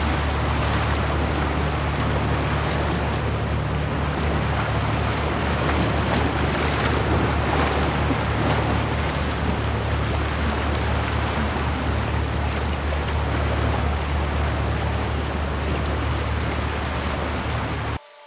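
Wind buffeting the microphone over the wash of the sea against shore rocks: a steady low rumble with a noisy hiss above it, which cuts off suddenly near the end.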